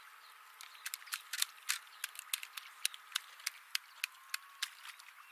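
Southern sea otter pounding a mussel against a stone anvil: a run of sharp clacks, about three a second, starting about a second in and stopping after about four seconds, over a faint steady hiss.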